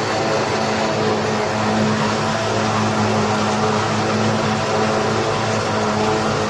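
Hürlimann H-488-T tractor's diesel engine running steadily under load, driving a Mengele 290 forage harvester that chops maize and blows it into a trailer: a steady engine hum under the rushing of the chopper and blower, heard from the tractor cab.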